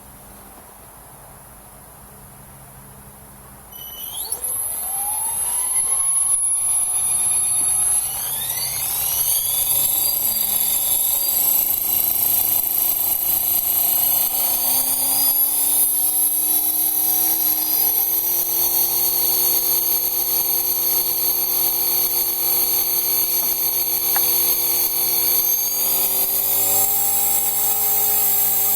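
Electric motor whine of a radio-controlled aircraft spinning up about four seconds in: a high whine rising in pitch over several seconds, then holding steady, with a further step up in pitch near the end.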